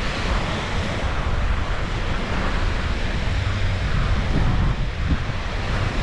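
Wind buffeting the microphone in a steady low rumble, over the constant wash of small waves breaking on the shore.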